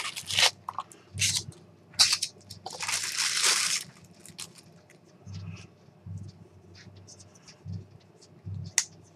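Packaging rustling and tearing as a folding knife is unwrapped. There is a longer tearing sound about three seconds in, followed by softer knocks and ticks of handling.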